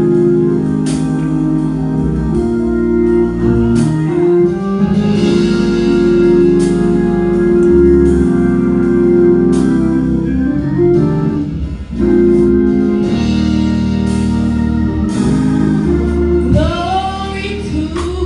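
Gospel church band playing: sustained Hammond-style organ chords over a bass line, with sharp percussion hits now and then. A voice comes in singing near the end.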